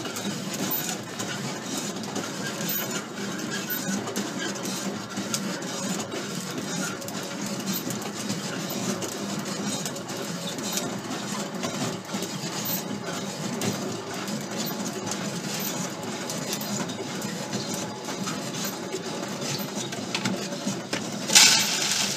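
Home-built coffee roaster running: coffee beans rattle and clatter in the steel drum as its electric motor turns it, a steady mechanical noise full of small clicks. Near the end a brief loud rush as the roasted beans spill out of the drum into the cooling tray.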